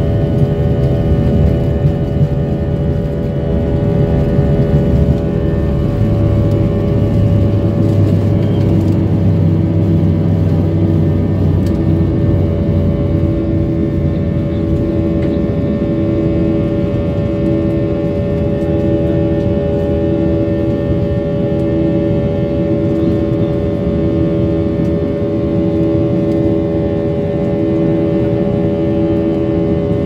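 Jet airliner's engines at takeoff power, heard from inside the cabin: a loud, steady rush with a steady hum of several tones. A deeper hum comes in about six seconds in and fades out about twelve seconds in.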